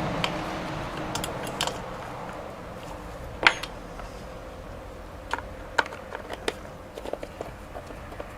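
A series of light, scattered clicks and knocks over a quiet background, the loudest about three and a half seconds in.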